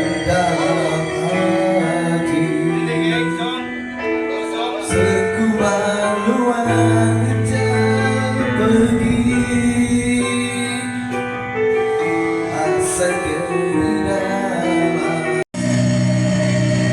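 A song performed at a sound check: singing over instrumental backing with held, sustained notes. The sound cuts out for a split second about fifteen seconds in.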